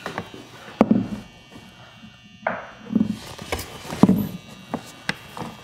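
A vinyl siding corner post being shifted and adjusted on the wall: about five dull knocks a second or so apart, with a brief scrape about two and a half seconds in.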